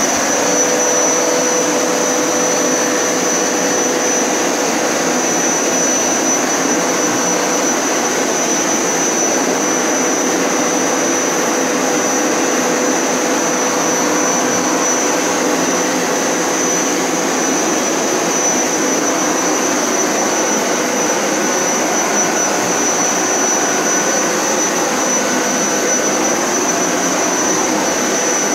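Hoover Power Scrub Elite Pet carpet cleaner running on its wash setting while shampooing a rug: a steady rushing motor noise with a high whine over it.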